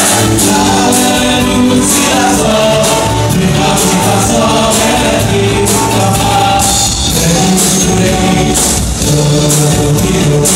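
Loud music with a singer over a steady, even beat.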